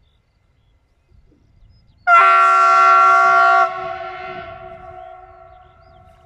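Horn of the EU46-520 Siemens Vectron electric locomotive giving one long warning blast, a chord of several notes. It starts suddenly about two seconds in, holds steady and loud for about a second and a half, then dies away over the next couple of seconds.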